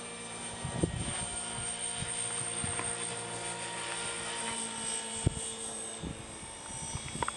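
HK450 electric RC helicopter flying high overhead: a steady whine of its motor and rotor, holding an even pitch. A few low thumps on the microphone and a sharp click about five seconds in.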